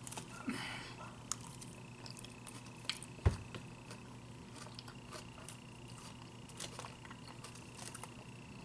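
Faint clicks and scrapes of a plastic fork picking salad out of a clear plastic takeout container, with quiet chewing and a sharper knock a little over three seconds in.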